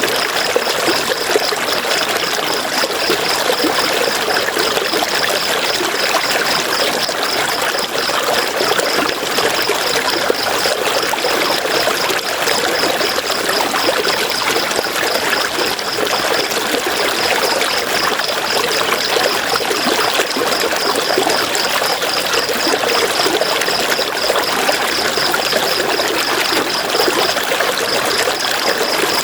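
River water rushing and splashing over rocks, a steady, even rush. A high, rapidly pulsing trill runs over it, breaking off briefly twice.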